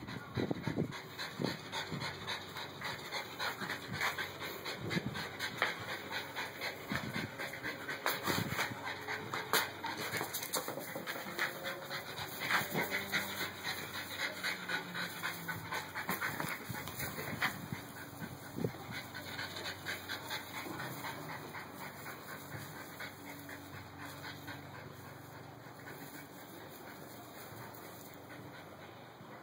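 A Yorkshire terrier panting in quick, even puffs, loudest for the first two-thirds and growing fainter toward the end.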